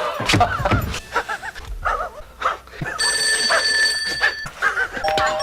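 A man's wheezing laugh, a string of short, quick wheezes. About three seconds in, a steady ringing tone sounds for a second and a half.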